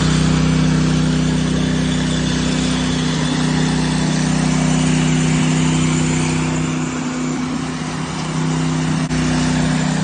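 Ride-on power trowel engine running steadily as a constant hum, easing slightly about seven seconds in.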